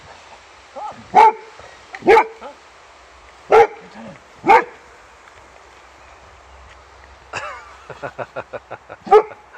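Boxer dog barking: five single loud, sharp barks spaced a second or more apart, at a visitor it is wary of. Near the end comes a quick run of short sounds, about eight a second, just before the last bark.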